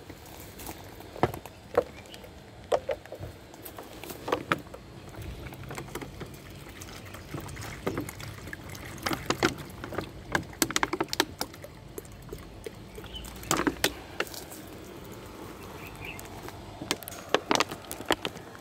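Water poured from a plastic bottle into a cat's water bowl, amid scattered sharp clicks and crackles from handling the bottle and stepping on dry leaf litter.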